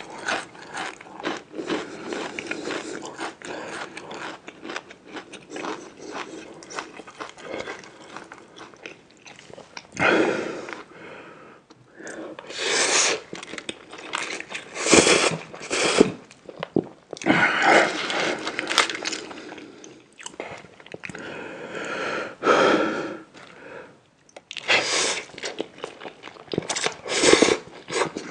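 Close-miked chewing and crunching of food in the mouth, a dense crackle for the first ten seconds, then louder bites and crunches coming every couple of seconds.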